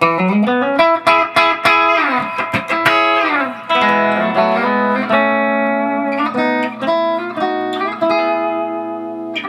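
Electric guitar played through a Dr. Z MAZ18 tube amp head into a 1x12 cabinet with a 12-inch Celestion speaker. It opens with a rising string bend, then runs quick picked notes and held notes that ring out. The tone has extra mid-range and bite.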